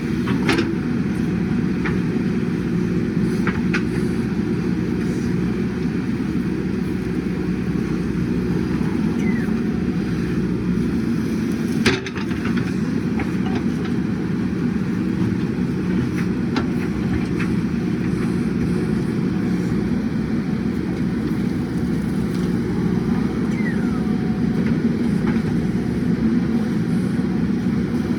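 JCB 3DX backhoe loader's diesel engine running steadily under work, with a few sharp metallic knocks from the machine, the loudest about twelve seconds in.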